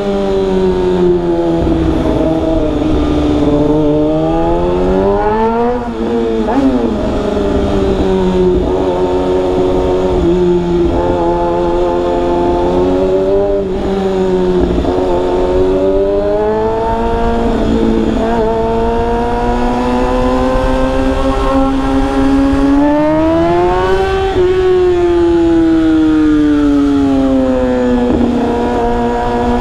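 Kawasaki Ninja ZX-6R's inline-four engine running under way, its pitch rising and falling as the throttle is opened and eased off, with sharper climbs about five seconds in and again about twenty-four seconds in. A steady low rush of wind and road noise lies underneath.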